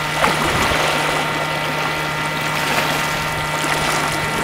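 Sea water washing steadily against a rocky shore, with a steady low hum underneath and a few faint ticks.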